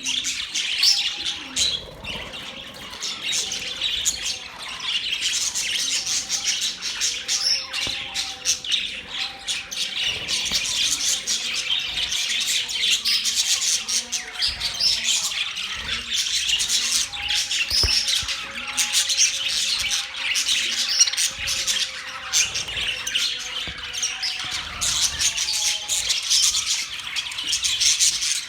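A flock of budgerigars chattering and chirping, many birds calling over one another without a break.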